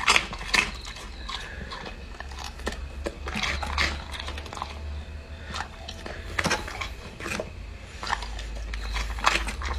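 A golden retriever crunching and chewing pieces of a puffed rice cracker: irregular sharp crisp crunches and clicks of the jaws, a few louder ones near the start and in the second half.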